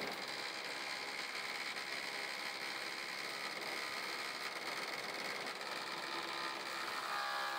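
Thickness planer running with its dust collector, feeding a wooden board through the cutterhead; a steady machine hum and hiss with a high whine.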